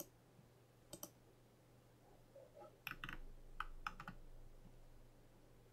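Faint clicks of a computer keyboard and mouse: one or two taps about a second in, then a quick run of four or five clicks around three to four seconds in.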